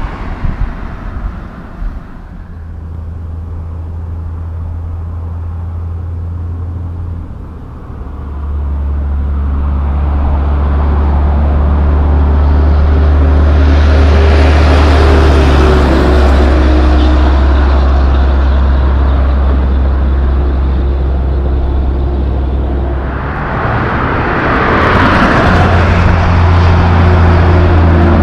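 Heavy diesel dump trucks driving past one after another, a deep steady engine drone with tyre noise that swells to its loudest about halfway through and again near the end.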